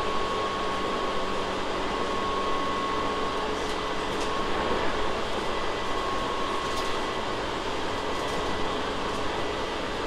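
Inside a Tobu 6050 series train car: a steady hum of the onboard equipment and ventilation, with a faint steady whine and a few faint ticks. There is no running rhythm, so the train is standing.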